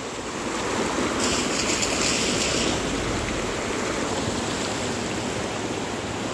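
Rushing floodwater of the swollen Satar river, a steady roar of noise. A brighter hiss joins about a second in and fades after a second and a half.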